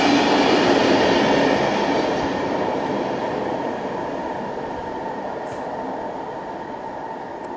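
Freight train rolling away down the line after its last wagons have passed, a steady rumble and rail hiss that fades as it recedes.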